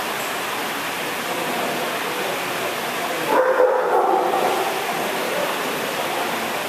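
A dog barks once, about halfway through, a short pitched call over a steady hiss of hall noise.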